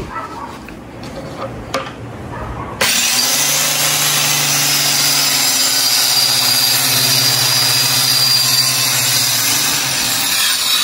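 Electric jigsaw switched on about three seconds in and cutting through a plywood board, running steadily with the blade rasping through the wood. A few light knocks of handling come before it starts.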